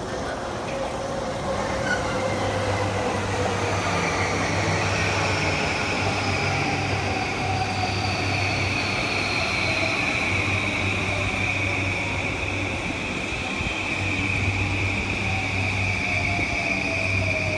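E235-series Yamanote Line electric train pulling into the station and slowing as it passes. Its motor whine slowly falls in pitch over a steady high tone and a low hum.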